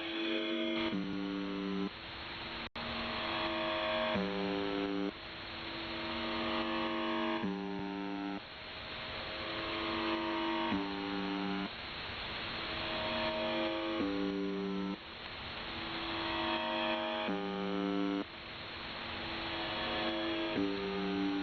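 UVB-76 'The Buzzer' shortwave signal on 4625 kHz, received over a shortwave radio: a harsh buzzing tone with a hiss of static beneath it. Every few seconds the buzz drops briefly to a lower pitch, then returns to the higher one and swells slowly in level.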